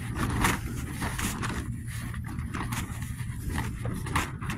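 Hammock tarp flapping and snapping irregularly in strong gusting wind, with heavy wind rumble on the microphone.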